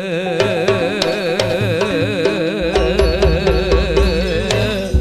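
Javanese gamelan koplo music: a singer holds a long, wavering, ornamented note over struck gamelan metallophones and drum beats, with a deep bass coming in about halfway.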